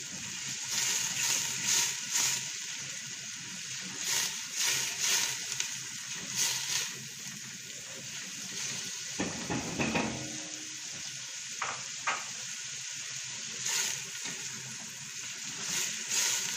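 Chopped onions sizzling in oil and rendered chicken fat in a stainless steel pot, being lightly sautéed. A spoon stirs them, scraping and knocking against the pot every second or so.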